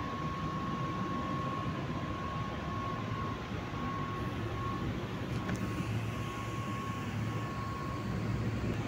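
Pneumatic spray gun hissing steadily as it sprays lacquer, with a thin steady whistle running through the noise.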